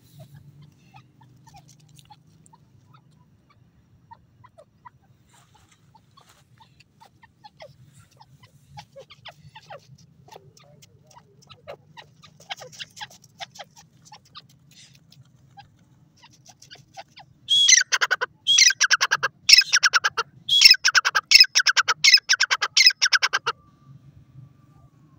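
Grey francolin calling: faint scattered chirps at first, then about 17 seconds in a loud, harsh run of rapidly repeated notes in four or five bursts lasting about six seconds.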